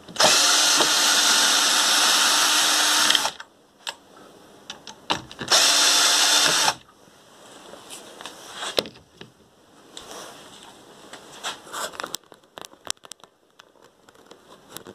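Einhell 18 V cordless drill driving a wood screw, its motor running steadily for about three seconds, then running again briefly about five and a half seconds in. Light clicks and knocks follow after the drill stops.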